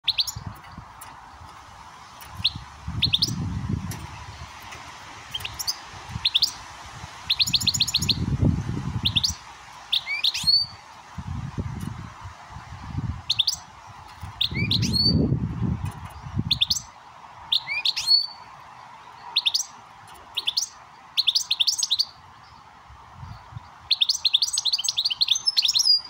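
Goldfinch 'switty' calls: short, sharp, rising call notes repeated every second or two, with a few quick twittering runs of notes, the longest near the end. Several low rumbles come and go underneath, over a faint steady hum.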